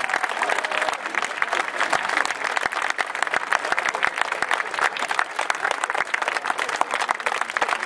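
Outdoor audience applauding steadily, a dense patter of many hands clapping.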